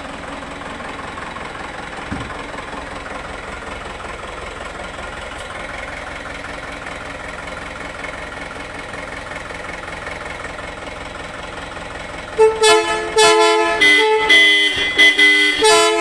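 Minibus engine idling steadily, with one thump about two seconds in. Near the end the bus's multi-tone horn sounds a quick run of loud short blasts at changing pitches, like a tune.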